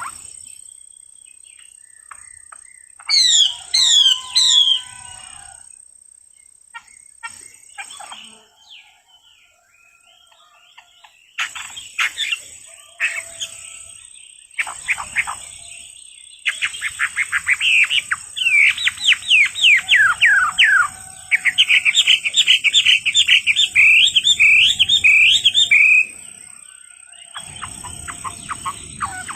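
A songbird singing: short bursts of quick, falling chirps, then a long, fast run of them in the second half that stops suddenly.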